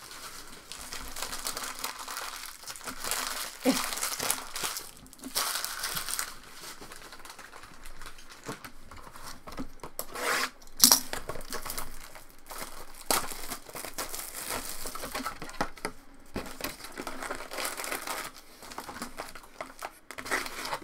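Plastic shrink wrap crinkling and tearing as a sealed trading-card box is cut and unwrapped, with cardboard and packs being handled. A sharp, louder crackle comes about halfway through.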